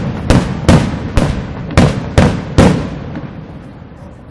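Aerial firework shells bursting overhead: six sharp bangs in about two and a half seconds, each trailing off in an echoing rumble, then the sound dies down near the end.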